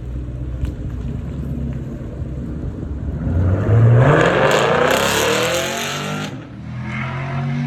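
Car engine rumbling at low revs, then revved hard for about three seconds, its pitch climbing steeply, before dropping back to a lower steady running note.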